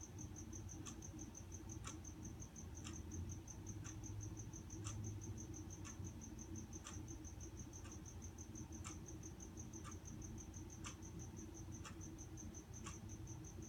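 A cricket chirping in a steady, rapid high-pitched pulse, with a sharp tick about once a second.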